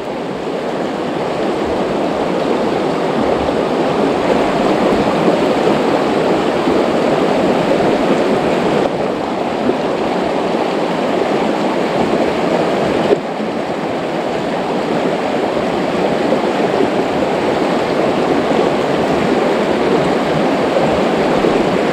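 Fast, shallow rocky river rushing over rapids: a steady, even rush of water.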